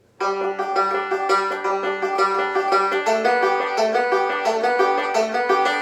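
Banjo picked in a fast, even rolling pattern: a steady stream of bright, punchy plucked notes that starts a moment in.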